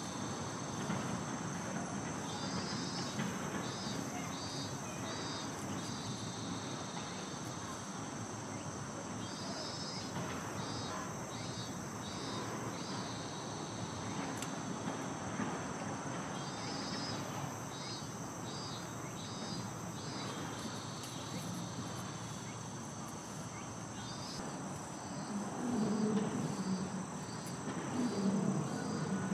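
Summer insect chorus: a steady high-pitched drone, with a short pulsed chirping phrase that repeats about every seven seconds. Faint voices come in near the end.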